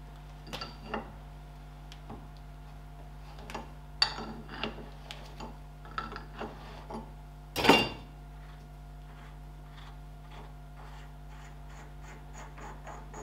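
Metal clinks and taps from hand work on a tractor front wheel hub and its hub cap, with one louder scraping rattle about eight seconds in. Near the end comes a quick run of light ticks, about five a second, as the hub cap is worked on by hand. A steady low hum sits underneath.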